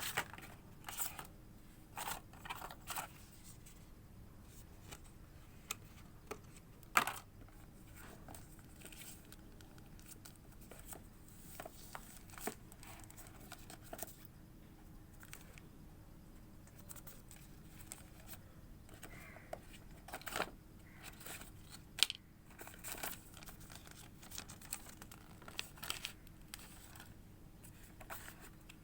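Smartphone box and packaging being handled: scattered sharp clicks and taps, with short bursts of rustling and tearing of packaging between them.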